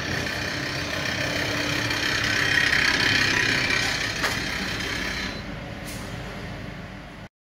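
Flamingo vertical mixer, auger conveyor and dust collector running together: a steady machine hum with several steady tones in it. It swells louder partway through, eases after about five seconds and cuts off suddenly near the end.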